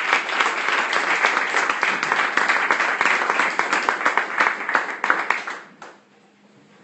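Audience applauding, many hands clapping together, dying away about five and a half seconds in.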